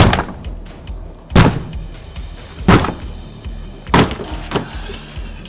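Sledgehammer blows on a uPVC door: four heavy strikes about a second and a quarter apart, then a lighter knock, over background music.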